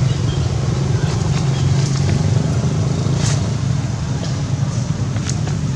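Steady low engine rumble running throughout, with a few faint clicks and ticks over it.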